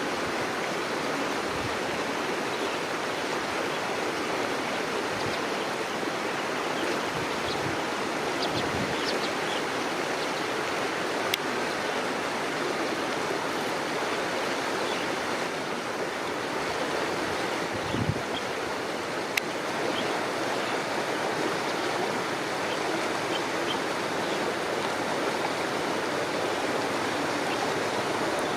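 Steady rush of flowing floodwater, with a few brief knocks and clicks.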